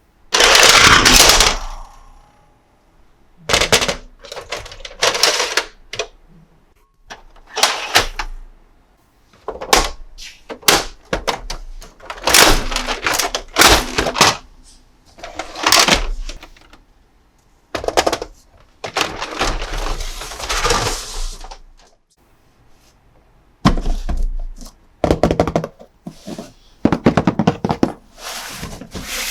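Hard plastic toy parts and packaging being handled: irregular clicks, knocks and crackling, with a longer stretch of crinkly rustling a little past the middle.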